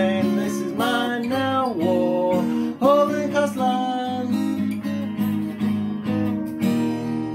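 Music: a strummed acoustic guitar.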